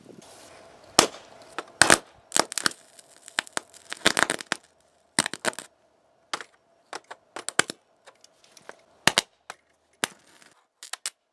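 Electric arcing from four lead-acid batteries wired in series, shorted through a copper rod and starter cables into a laptop's circuit board: a string of sharp, irregular cracks and snaps as the rod sparks against the metal.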